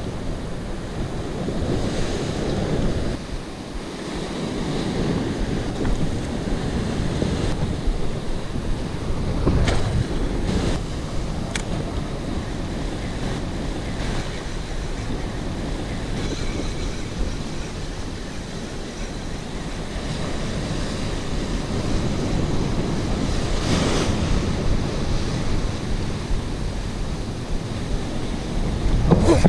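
Ocean surf breaking against a coral rock shelf, a steady rush that swells and eases with the waves, with wind buffeting the microphone.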